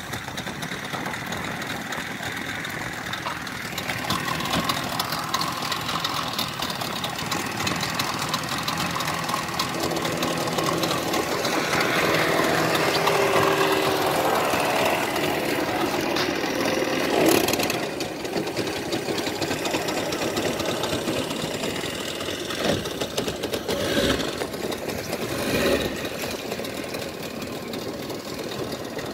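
Motorboat engine idling steadily, mixed with wind and water noise, with a few brief louder bumps in the second half.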